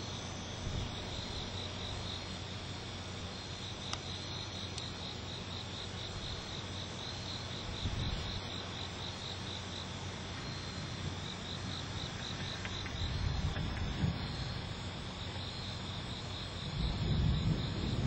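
Night insects trilling steadily in a fast pulsing rhythm, with a low rumble of distant thunder swelling briefly a little after the middle and again near the end.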